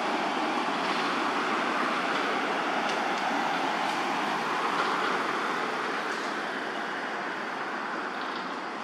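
Steady rushing background noise, easing slightly near the end.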